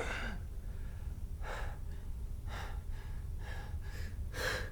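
A man's heavy, gasping breaths, about one a second, over a low steady hum.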